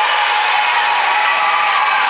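Spectator crowd at a volleyball match cheering and shouting, a steady, loud wash of many voices.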